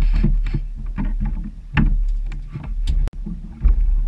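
Wind buffeting the microphone in a low rumble, with choppy water slapping against a small boat's hull in uneven splashes and knocks. A brief sharp click comes about three seconds in.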